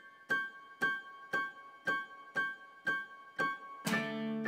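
Keyboard music: a high chord struck about twice a second, then a fuller, lower chord held near the end.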